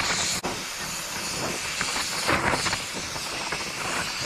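Gas torch flame burning steadily with a hissing rush, held on a cast bearing housing to heat and expand it so the bearing race can be pried out.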